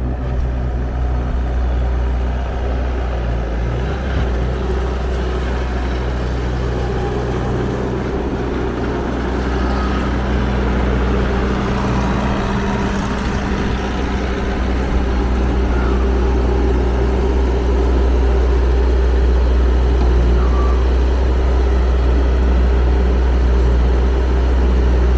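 Bobcat S550 skid steer loader's diesel engine running steadily, getting a little louder about two-thirds of the way through.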